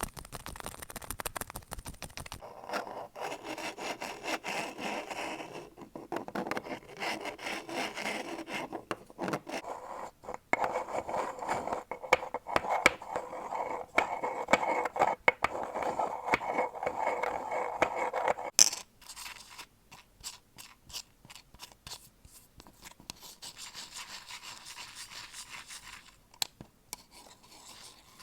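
Close-miked ASMR triggers: a run of scraping, rubbing and scratching sounds on different objects, full of small clicks and taps. The texture changes every few seconds as one trigger gives way to the next.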